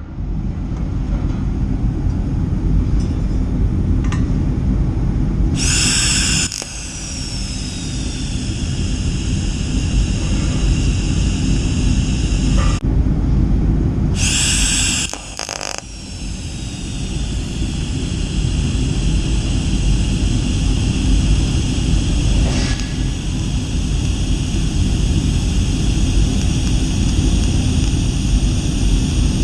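TIG welding on steel in a welding shop: a steady loud rumble with a faint high whine under it, broken by two short, bright hissing bursts about six and fifteen seconds in.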